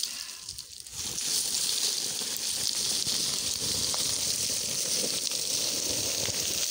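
Loose scree stones shifting and rattling as a person slides down the slope seated, a continuous gravelly hiss full of small clicks that picks up about a second in after a short pause.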